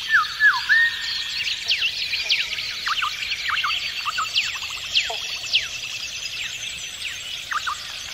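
A busy chorus of many birds calling together: overlapping short, sharply falling whistles and chirps, with now and then a quick rattling call.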